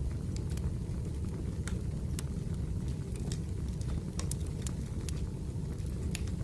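Wood fire burning: a steady low rumble of flames with sharp crackles and pops at irregular intervals, about two a second.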